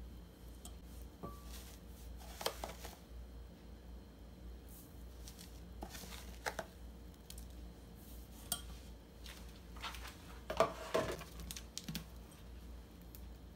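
Metal spoon scraping and clinking against a glass mixing bowl as red pepper paste and chili powder are spooned in: a few scattered light clinks and scrapes, the loudest cluster about eleven seconds in.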